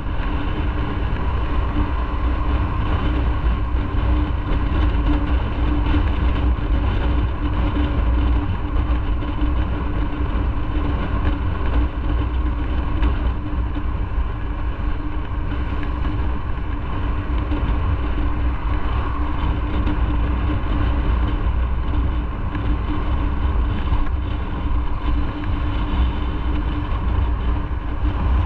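Motorcycle engine running at a steady cruise while riding, with wind rushing over the microphone.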